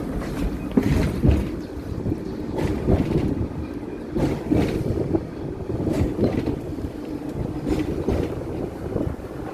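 Hong Kong double-decker tram running along its tracks: a steady low rumble with irregular rattles and clanks.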